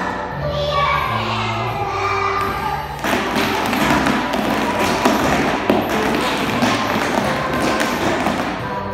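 A song with a steady bass line plays over many children's feet stamping and stepping on a dance-studio floor, a scatter of thuds and taps that grows denser about three seconds in.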